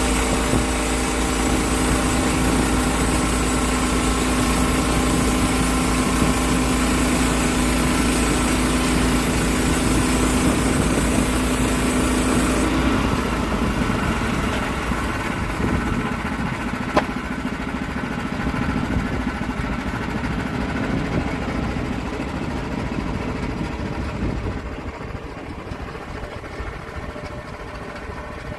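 Gasoline engine of a log-milling saw running steadily at high speed, with a strong hiss. About 13 seconds in, the hiss drops off abruptly and the engine carries on lower and rougher, with a single sharp click a few seconds later. It quietens slightly near the end.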